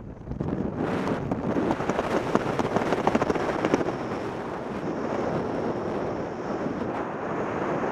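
Wind rushing and buffeting over a skydiver's helmet-camera microphone under an open parachute canopy: a steady rush with fine crackling gusts.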